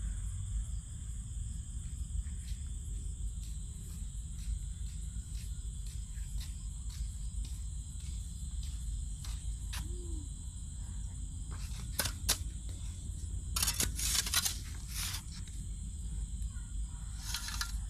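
Crickets keep up a steady high-pitched chorus over a low rumble. A few short noisy scuffs come about twelve seconds in and again around fourteen seconds.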